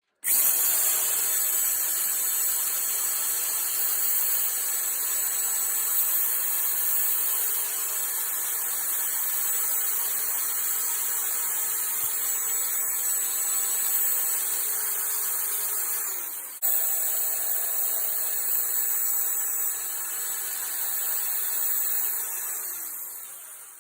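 Electric belt linisher running while the tip of a steel flat-bladed screwdriver is ground against the belt to form the angle of a checkering tool; a steady, high-pitched grinding hiss with a sudden break about two thirds of the way through.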